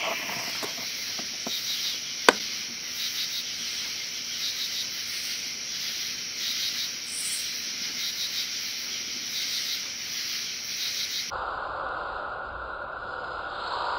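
Loud night chorus of calling insects, a dense pulsing trill, with one sharp click about two seconds in. Near the end it switches abruptly to the chorus slowed down, much lower in pitch with slower pulses.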